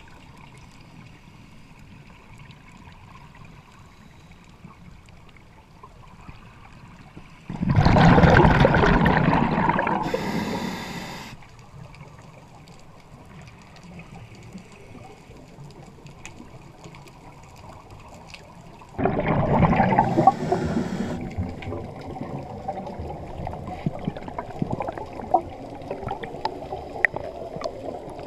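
A scuba diver's own breathing, picked up underwater by a mask-mounted camera: two long bursts of exhaled regulator bubbles, the first about seven seconds in and the second about nineteen seconds in. After the second burst, quieter bubbling and crackle carry on.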